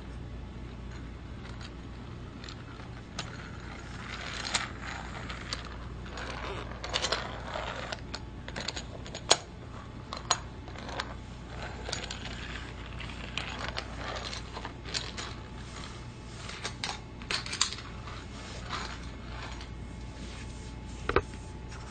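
Die-cast Thomas Take-n-Play toy train rattling and clicking along plastic playset track, with many irregular sharp metallic clicks and knocks, the loudest about nine seconds in.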